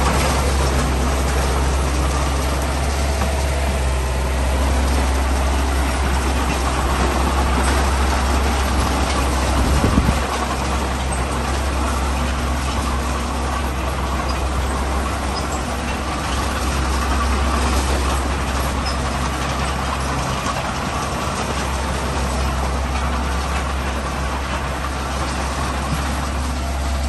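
Heavy construction machine's diesel engine running steadily, with a brief louder knock about ten seconds in.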